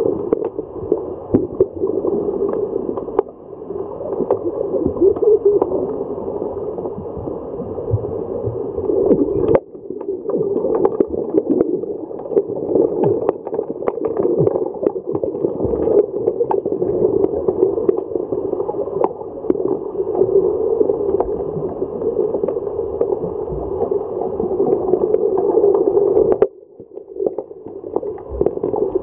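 Underwater sound heard through a camera housing: a continuous muffled churning of water stirred by swimmers in fins, with many scattered sharp clicks and knocks. The sound drops away abruptly about a third of the way in and again near the end.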